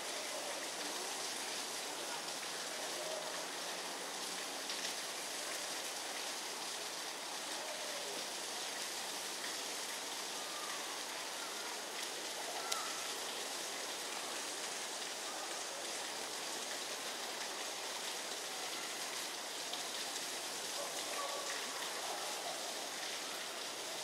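A steady, even hiss of outdoor background noise, strongest in the high range, with no clear calls or tones standing out.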